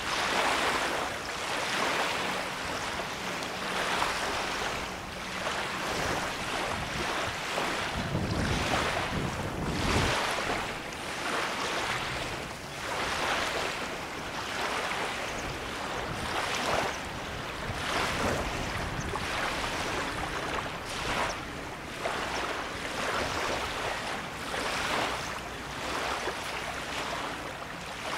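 Small lake waves washing against the shore in a steady rhythm, swelling and ebbing every second or two. A gust of wind rumbles on the microphone about eight seconds in.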